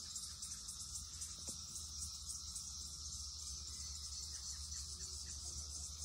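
Chorus of many red-eyed periodical cicadas singing together: a steady, high-pitched pulsing drone.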